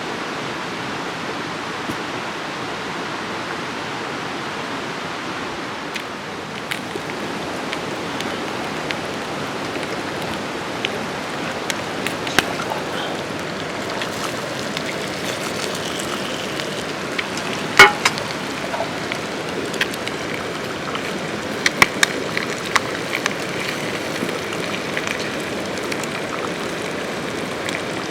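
Wood campfire burning and crackling over a steady hiss, with scattered sharp pops; the loudest pop comes about two-thirds of the way through, followed by a small flurry of crackles.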